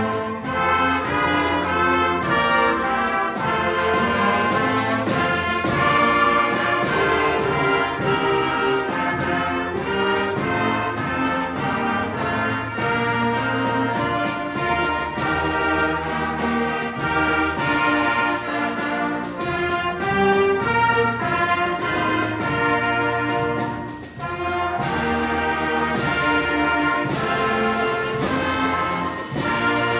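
Band music led by brass instruments, trumpets and trombones carrying the melody, with percussion strikes; it pauses briefly about 24 seconds in, then resumes.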